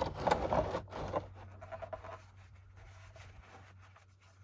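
Scraping and rustling handling noises, busiest in the first second and then fainter and scattered, over a steady low hum.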